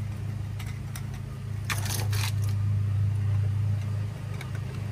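A short clatter of hard plastic knocks about two seconds in, PVC pipe and fittings being handled during dry-fitting, over a steady low machine hum.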